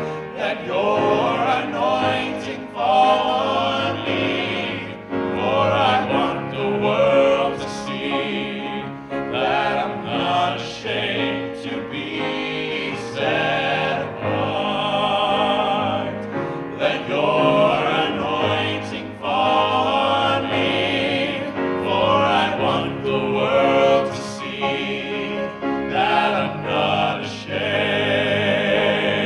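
Vocal group singing a gospel song in harmony, voices wavering with vibrato over a steady accompaniment.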